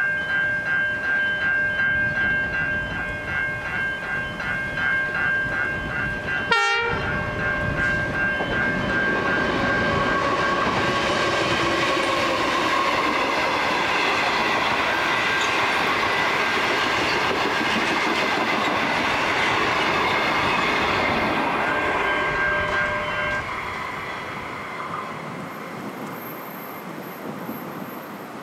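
Level crossing bells ring in an even pulse while a passenger train hauled by an NR class diesel-electric locomotive, with six carriages, passes close by. The wheels make a steady rumble and clickety-clack that fades away as the last carriage goes. The bells stop about 23 seconds in.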